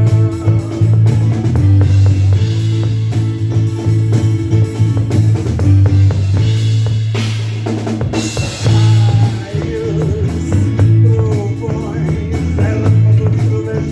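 Live rock band playing: drum kit keeping a steady beat under held bass notes and guitar, with a cymbal wash about halfway through.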